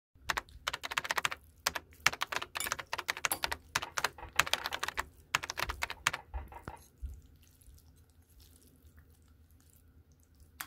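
Rapid keyboard typing: dense runs of sharp clicks for about the first seven seconds, then it stops, with one lone click near the end.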